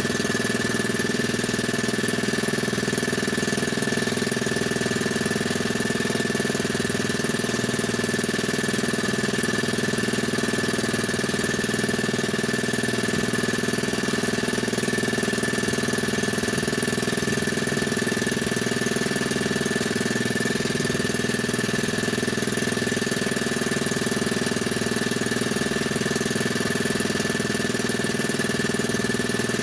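Small boat engine running steadily at an even speed: a constant drone with a steady high whine above it.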